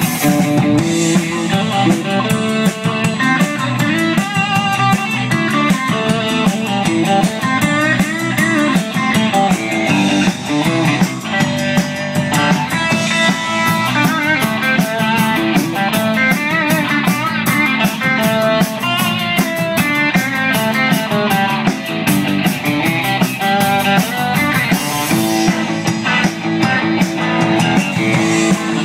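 Live rock band playing: electric guitar and electric bass over a drum kit with cymbals.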